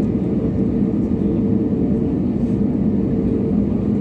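Airliner engines running: a steady low rumble with a faint steady hum in it.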